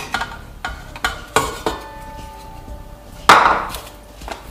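Kitchen bowls being handled: a plastic bowl knocks and taps against a stainless steel stand-mixer bowl and its wire whisk, several light knocks followed by a ring that holds for about a second and a half. One louder knock comes about three seconds in.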